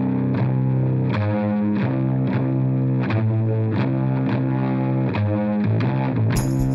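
Electric guitar through distortion and effects, playing a line of sustained notes with a new note struck about twice a second. Near the end the sound suddenly becomes brighter and fuller.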